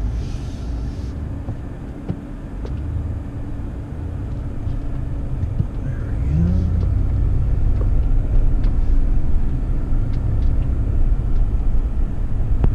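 2019 Ram 1500 Rebel pickup moving slowly along an off-road trail: a steady low engine and tyre rumble that grows louder a little past halfway through, with a few light knocks.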